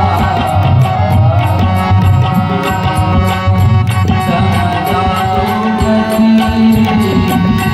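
Marathi devotional bhajan music with tabla accompaniment: a melody over a steady beat of drum and cymbal strokes.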